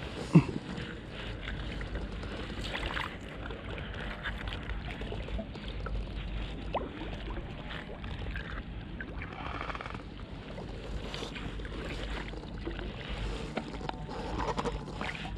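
Water splashing and lapping around a small boat over a steady low wind rumble on the microphone. A sharp knock comes about half a second in, and a landing net is dipped into the water near the end.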